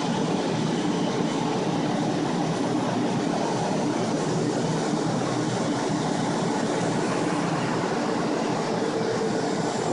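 Several centrifugal air movers (carpet-drying blowers) running together: a steady whir of fans over a low, even motor hum. They are drying out a house stripped after a flood.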